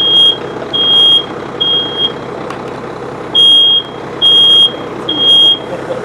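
Smoke alarm sounding its evacuation pattern: high, steady beeps about half a second long, in groups of three with a short pause between groups. It is triggered by smoke from a wastebasket fire.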